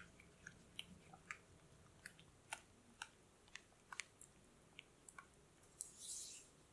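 Silicone spatula stirring butter and egg in a glass bowl: faint, irregular soft clicks and wet squelches as it taps and scrapes the glass, with a short scraping hiss near the end.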